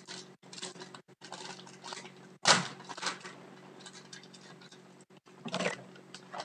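Foil-lined trading card pack wrapper crinkling and tearing as it is pulled open by hand, in irregular crackles. The sharpest burst comes about two and a half seconds in, and another comes near the end.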